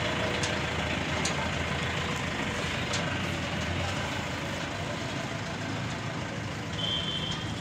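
Tractor engine running steadily as it tows a two-wheeled tractor trolley past, with a few light clicks and a short high tone near the end.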